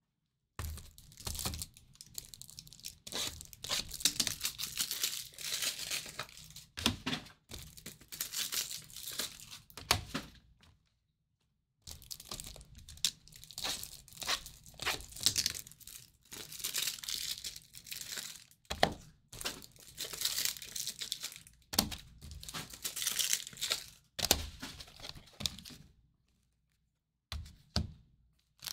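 Packaging on sealed trading-card boxes being torn and crinkled by hand, in repeated bursts of rustling and tearing. There is a one-second pause about eleven seconds in and a longer pause near the end.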